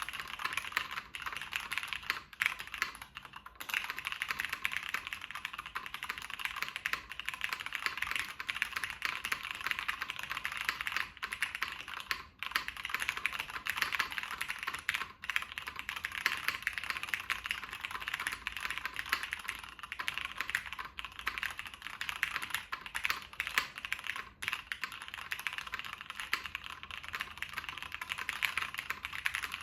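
Steady fast typing on a Matrix 1.2 OG mechanical keyboard with Cherry MX Black linear switches and GMK doubleshot ABS keycaps on an aluminium half plate, top-mounted, with tape under the PCB. A continuous stream of key clacks with only a few brief pauses.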